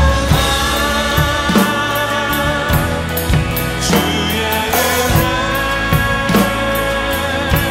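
Acoustic drum kit played with sticks along to a contemporary worship song recording with singing, with steady drum and cymbal hits over the band and vocals.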